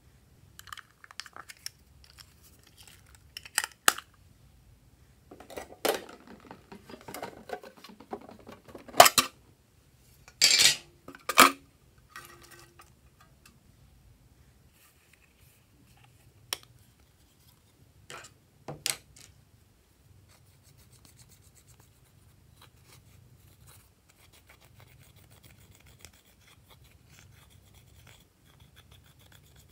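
Plastic eyeshadow cases being handled and snapped open: a run of sharp plastic clicks and clacks, loudest about nine to eleven seconds in. Near the end a plastic tool faintly scrapes pressed eyeshadow out of its pan.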